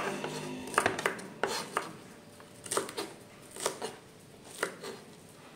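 Kitchen knife cutting green beans on a cutting board: irregular sharp chops, some in quick pairs, about a second apart, fainter in the second half.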